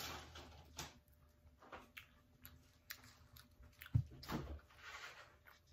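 A child eating French fries: soft, scattered chewing clicks and smacks, with a low thump about four seconds in.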